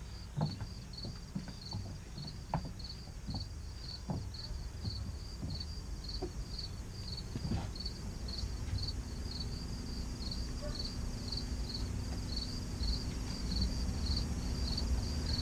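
Insects chirping in a steady pulse, about three chirps a second, over a low outdoor rumble, with a few faint knocks in the first half.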